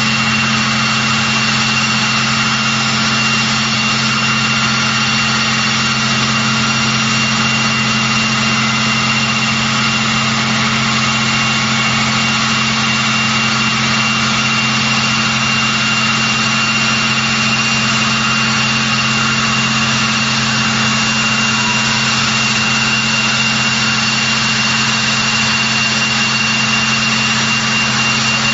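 Vickers Vanguard (Merchantman) airliner's Rolls-Royce Tyne turboprop engines running at a steady ground run, a constant high whine over a low drone.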